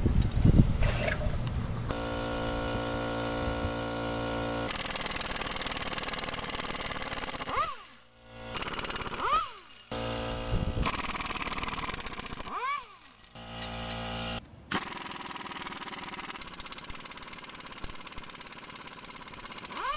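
Air-powered wrench running on the front wheel bearing hub bolts of a steering knuckle, in long bursts. Its pitch sweeps up and back down each time the trigger is squeezed or let go, with short stops about eight seconds in and again around thirteen seconds.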